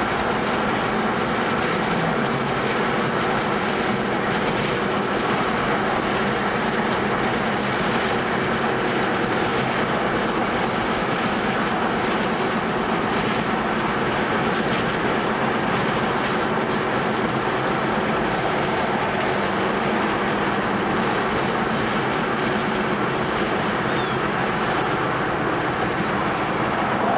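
Steady road noise of a moving car on the highway: a constant engine drone over tyre rumble on pavement.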